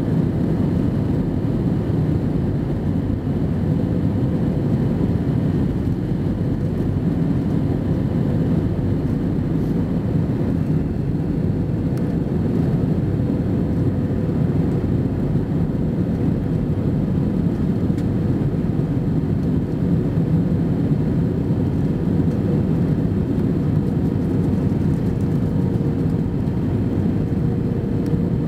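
Steady cabin noise inside an Airbus A320 airliner on its descent to land: the low rumble of airflow and the turbofan engines, with a faint steady hum running through it.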